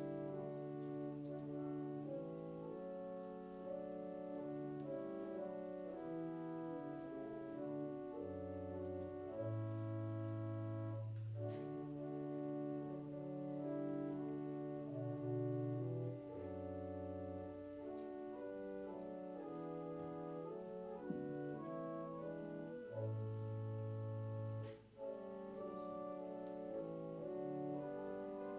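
Slow instrumental music in held chords over a deep bass line, each chord changing every second or two.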